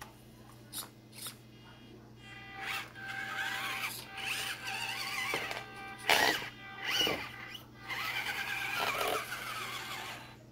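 Small electric motor and gearbox of a 1/24-scale Element RC Enduro24 Trailrunner crawler whining as it drives, the pitch rising and falling with the throttle. A couple of light clicks near the start and a sharp knock about six seconds in.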